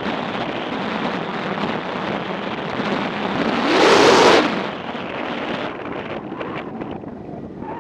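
Wind rushing over the microphone of a camera on a moving motorcycle, with road and engine noise beneath. A louder gust swells about four seconds in and fades about a second later.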